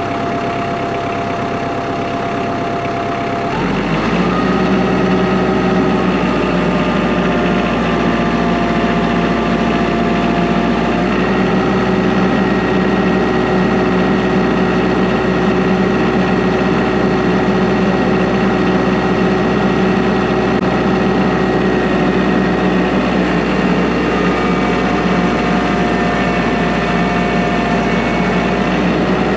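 Kubota L3940 tractor's diesel engine running. About three and a half seconds in it picks up speed and gets louder, then holds a steady note.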